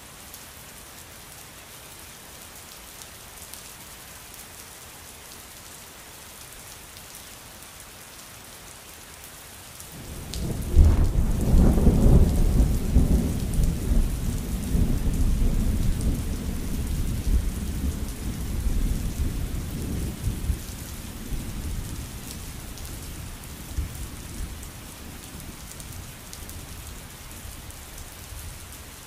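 Steady rain falling, with a thunder clap about ten seconds in that rumbles deeply and slowly dies away over the next ten seconds or so.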